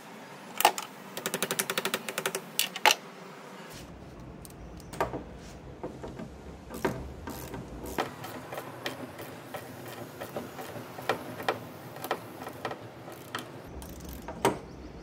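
Socket ratchet clicking as a car battery's negative terminal clamp nut is tightened. A fast run of clicks comes about a second in, followed by slower, scattered clicks.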